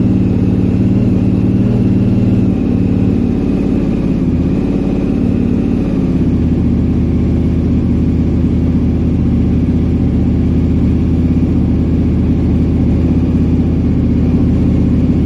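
Motorcycle engine running steadily at idle, its speed dropping slightly a couple of seconds in and settling to a lower, even idle about six seconds in.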